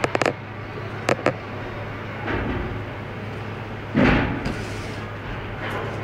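Movement and handling noise close to the camera over a steady low hum: a few sharp clicks in the first second and a half, then a louder thump and rustle about four seconds in, as a person steps right up to it.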